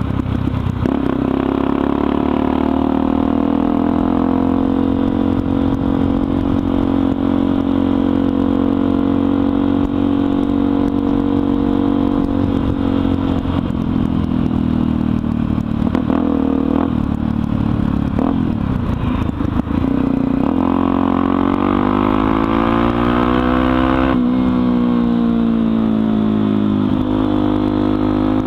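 Honda XR 250 Tornado single-cylinder four-stroke engine with an open, de-baffled exhaust, running loud under way. The note holds steady for a while, then wavers, and in the last several seconds rises and falls repeatedly as the engine is revved up and eased off.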